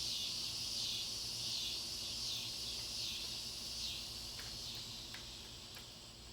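Chorus of crickets or similar insects: a dense, high, pulsing buzz that fades over the last couple of seconds, with a few faint clicks near the end.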